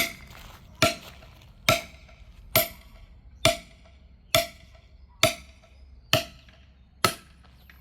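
A hammer striking a steel wedge driven into a hard log to split firewood: nine evenly spaced blows, a little under one a second, each with a short metallic ring. The wedge is not yet splitting the very hard wood.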